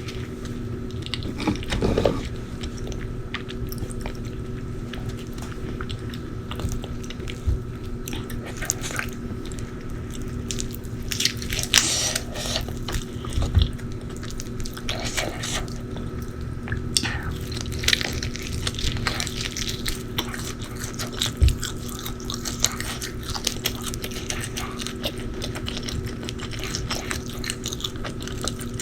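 Close-miked eating: irregular bites and chewing with crisp crunches scattered throughout. A faint steady hum runs underneath.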